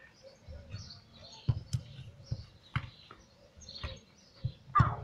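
Small birds chirping, with several dull thumps of a rubber ball being kicked and thrown, the loudest near the end.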